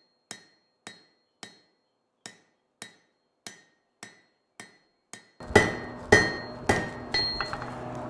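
Hammer blows on hot steel over an anvil, about two a second, each strike with a short metallic ring from the anvil, while the bar is drawn out and rounded into a leaf hook's stem. About five seconds in the blows get louder and a steady hum comes in underneath.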